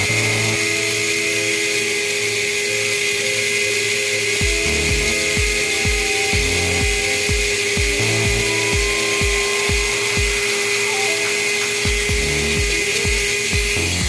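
Tamiya Mini 4WD car's electric motor and gear drive running flat out on the bench with a steady high whine, the chassis vibrating hard. It cuts off at the very end. Background music with a steady beat plays underneath.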